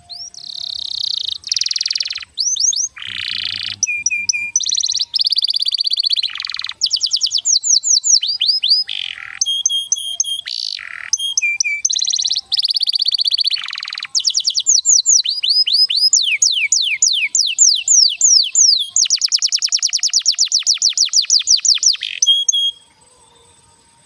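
Canary singing a long, continuous song of varied phrases: rolling trills, fast runs of repeated notes and rapid downward-sweeping whistles, ending in a very fast buzzy roll before the song stops abruptly.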